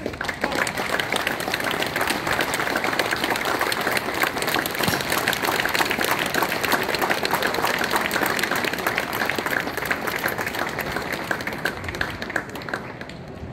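Crowd applauding, swelling sharply at the start and tapering off near the end.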